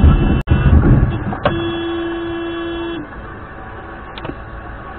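A car colliding with an SUV turning across its path: heavy thumps and a low rumble in the first second. A car horn then sounds one steady blast about a second and a half long, followed by quieter road noise and a single click.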